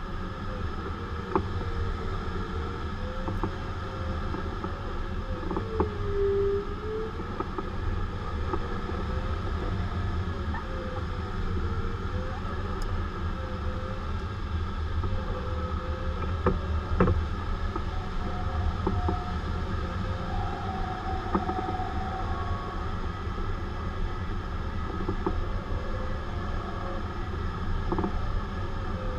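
Steady rush of airflow in a glider cockpit, with an electronic variometer tone wavering up and down in pitch as the climb rate changes. The tone jumps higher for a few seconds past the middle.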